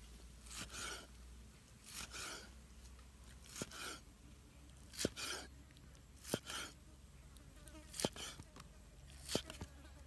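A kitchen knife slices through cooked pork belly on a wooden cutting board, about seven strokes at an even pace, roughly one every second and a half. Each stroke is a short rasping cut. In the second half each cut starts with a sharp knock of the blade on the board.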